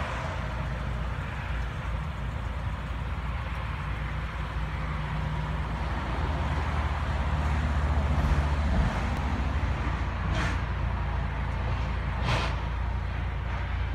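A tram's engine running with a steady low drone. It grows louder for a few seconds in the middle, then eases back, and two short hisses come near the end.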